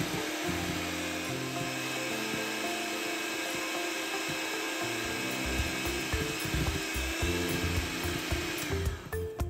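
Electric kitchen mixer running steadily with a faint whine, cutting off shortly before the end, under background music.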